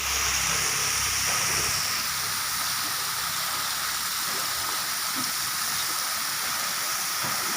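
Steady hiss of falling water, with a low rumble under it for the first couple of seconds.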